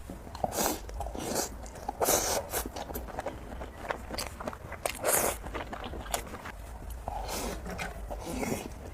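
Close-miked eating sounds of a spicy noodle mukbang: bites and chewing in short, irregular bursts.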